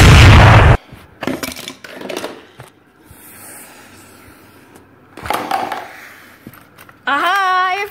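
A very loud explosion-like blast cuts off under a second in; then plastic toys and a plastic crate are shuffled, knocked and scraped on a hard floor, with a short rustling burst about five and a half seconds in. Near the end a voice starts singing with a wavering pitch.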